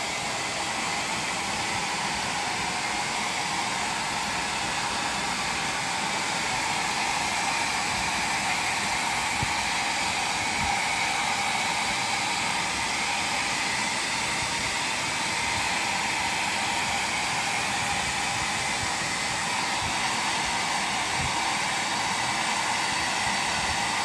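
Hair dryer running steadily: a constant rush of air with a faint steady whine in it.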